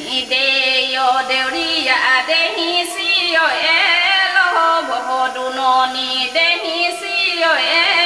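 A woman singing a Deori folk melody solo, with long held notes and downward slides between them. She comes in at the very start.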